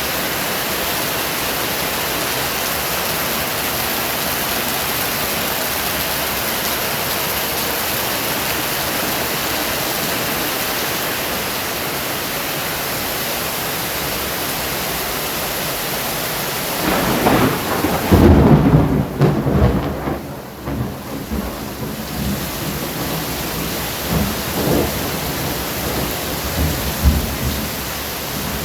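Thunderstorm: steady rain hissing, then about two-thirds of the way in a loud clap of thunder breaks and rolls on as a low rumble that dies away in smaller swells over several seconds.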